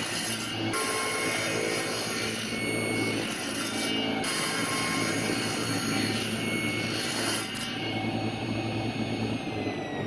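A power saw running and cutting wood. Near the end its motor begins to wind down with a falling whine.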